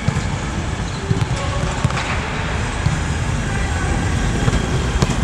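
Indoor volleyball rally: a few sharp ball contacts and footfalls on the court, and players' voices, over a steady low rumble in a large hall.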